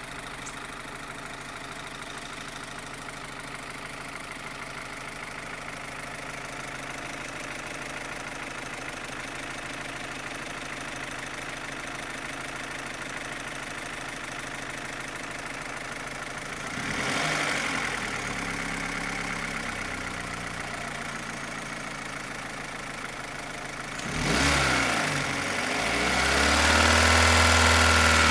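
Opel Astra H's Z16XEP 1.6-litre four-cylinder petrol engine running with a loud ticking like rocker arms. It idles steadily, is revved briefly about two-thirds of the way in, and is revved again near the end and held higher. The ticking stops when fuel to cylinders 3 and 4 is cut, yet new rocker arms on those cylinders did not cure it; the owner wonders whether the non-original camshafts cause it.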